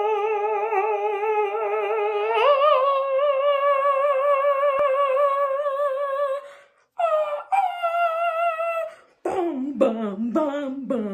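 A woman belting a long, high sung note with a wide vibrato, stepping up in pitch about two and a half seconds in and holding it; after a brief break a second held note slides downward. Near the end come quick, lower-pitched vocal syllables.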